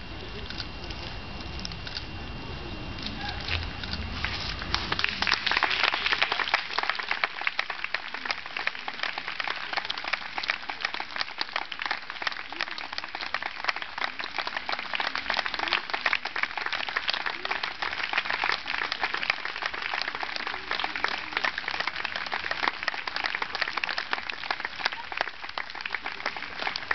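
Audience applauding outdoors. The clapping builds up about five seconds in and then keeps going steadily as a dense patter of many hands.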